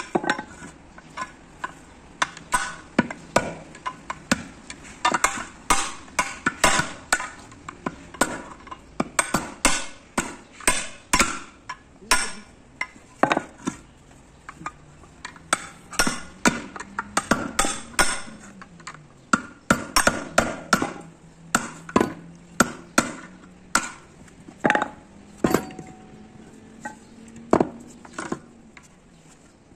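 Hand hammer striking a steel punch against the rivets of an Ashok Leyland bus brake shoe to knock out the old lining: dozens of sharp metallic strikes in quick runs with short pauses.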